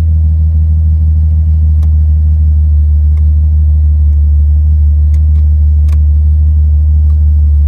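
1988 Jeep Cherokee XJ engine idling steadily, with the air conditioning and headlights switched on.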